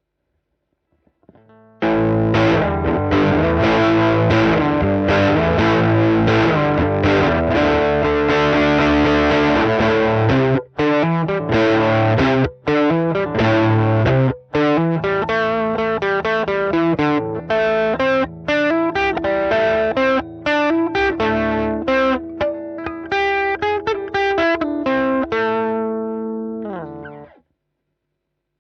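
Strat-style electric guitar played through a one-knob fuzz pedal built on the Colorsound Fuzz circuit, giving a thick distorted tone. Playing starts about two seconds in with sustained chords that break off briefly a few times. It turns to choppier notes, then ends with a downward slide and stops shortly before the end.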